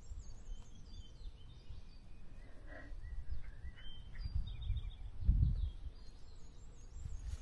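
Faint birds chirping and trilling in short high calls over a low, uneven rumble that swells briefly about five seconds in.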